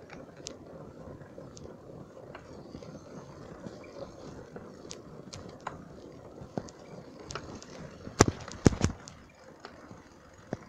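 Bicycle rolling over a wet, rutted dirt road: a steady rushing noise with scattered sharp clicks and rattles from the bike. About eight seconds in comes a quick run of loud clattering knocks as it jolts over bumps.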